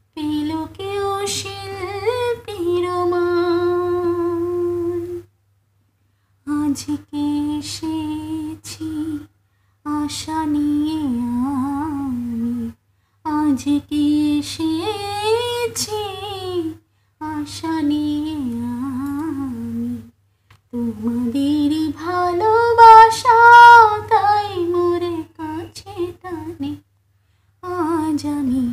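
A woman's unaccompanied voice carrying a slow Bengali melody in long held and gliding notes, phrase by phrase with short silences between. The loudest and highest phrase comes near the end.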